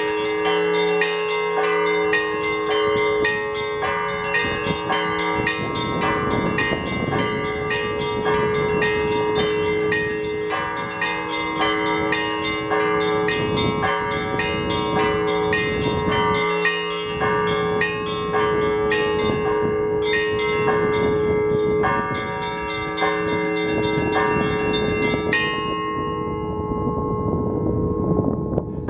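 Orthodox church bells being rung by a bell ringer in a fast, dense pattern: small high bells struck several times a second over the held ringing of larger bells. Gusts of wind blow across the microphone at times. The small bells stop about three-quarters of the way through, leaving the larger bells ringing out, then start again right at the end.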